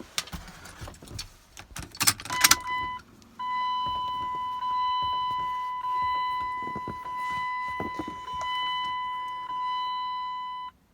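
Keys jangling and a few clicks, then a vehicle's in-cab electronic warning chime with the ignition switched on before cranking. It is a steady, pitched tone that sounds briefly, then holds for about seven seconds, pulsing a little louder about once a second, and cuts off suddenly near the end.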